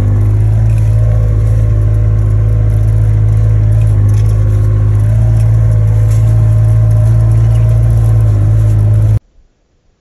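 Engine of a John Deere Gator utility vehicle running steadily as it drives, a loud unchanging drone with a strong low hum. It cuts off suddenly about nine seconds in.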